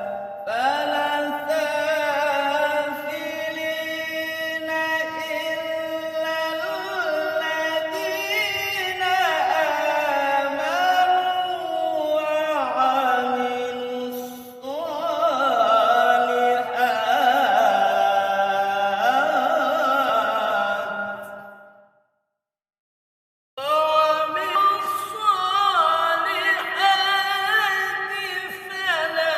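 A male qari reciting the Qur'an in the melodic mujawwad tilawah style, in maqam bayyati. One voice holds long, ornamented notes that glide and waver. About 22 seconds in it breaks off into a second and a half of silence, then the recitation resumes.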